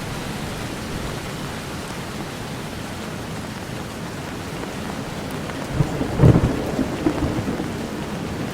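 Thunderstorm: steady heavy rain, with a loud low rumble of thunder starting about six seconds in and rolling on in pulses to the end.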